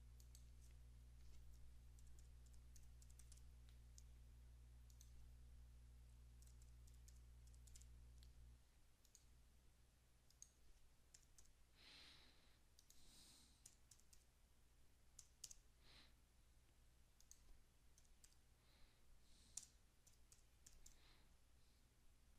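Near silence: faint, scattered computer mouse clicks and keystrokes during data entry, over a low steady electrical hum that cuts off about eight and a half seconds in.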